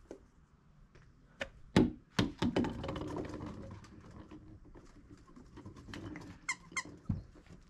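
A small ball knocking on and rolling across wooden deck boards while a toy poodle puppy runs after it, with thuds on the deck and a rumbling roll that slowly fades. Two short high squeaks and another thud come near the end.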